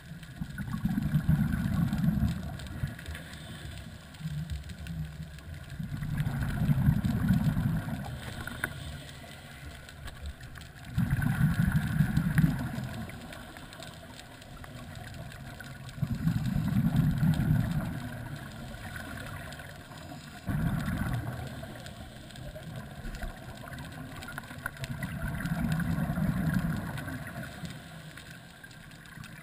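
Scuba regulator exhaust bubbles heard underwater: a low bubbling rumble swells up about every five seconds, six times, as a diver breathes out through the regulator, with a faint steady hiss between breaths.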